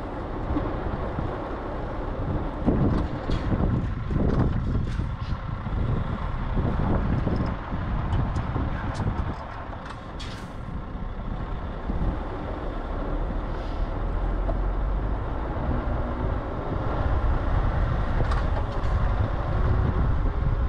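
Scania R580 truck's V8 diesel engine running at low speed while the truck manoeuvres, with a few short hisses of compressed air.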